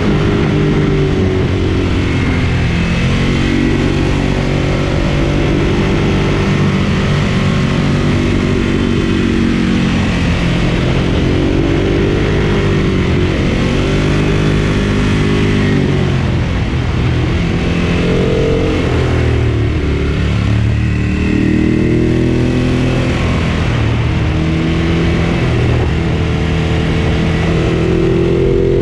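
Ducati Monster 1200 S's L-twin engine under way, its revs climbing and dropping again and again as the bike accelerates and eases off.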